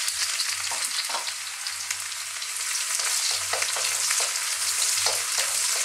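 Sliced onions and chopped celery sizzling loudly in very hot oil in a wok, with a wooden spatula scraping and knocking against the pan as it stirs them through.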